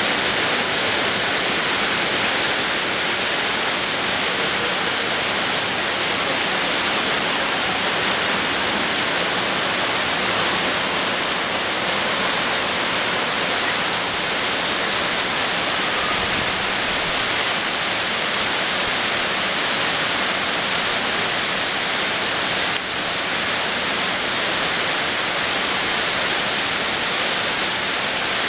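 Heavy tropical rainstorm: a downpour falling steadily as a dense, even hiss.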